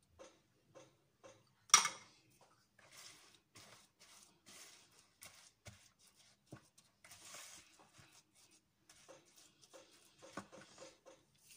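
Silicone spatula stirring and scraping thick oatmeal cookie dough in a plastic mixing bowl: faint scrapes and soft clicks, with one sharp knock about two seconds in.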